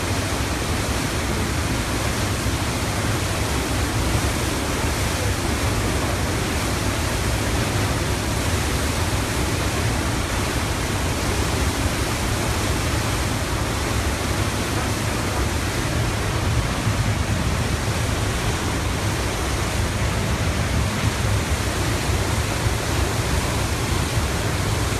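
River in violent flood: fast, churning brown floodwater rushing over its banks with a steady, unbroken rushing noise.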